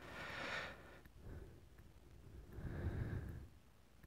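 Faint breathing: two soft breaths, one at the start and another about two and a half seconds later.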